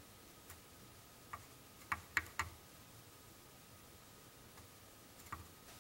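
A few faint, sharp clicks, about six of them spread apart and clustered around two seconds in, over a quiet background with a faint steady high-pitched whine.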